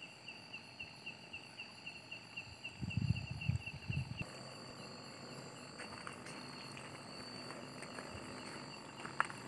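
Night insects chirping: one high chirp pulsing evenly about four times a second over steady, higher insect trills. The pulsed chirping stops about four seconds in, just after a few low thumps.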